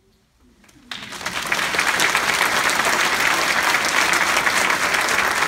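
A choir's final held chord fades out, and after a brief hush an audience starts applauding about a second in, clapping steadily and loudly.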